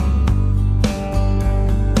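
Instrumental background music led by guitar, with notes struck about once a second over a deep, steady bass.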